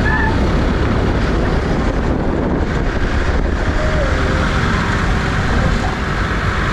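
Engine and road noise of an open-sided 4x4 driving at town speed, heard from inside the vehicle, with wind buffeting the microphone. Steady rumble throughout.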